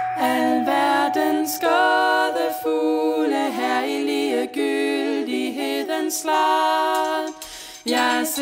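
Several women's voices singing in close harmony without instruments. The singing breaks off briefly near the end, then comes back in.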